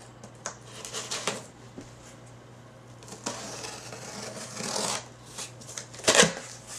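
A cardboard shipping box being cut open with a pocket knife: scraping and slitting of tape and cardboard, with one longer scrape about three seconds in and a sharp knock about six seconds in.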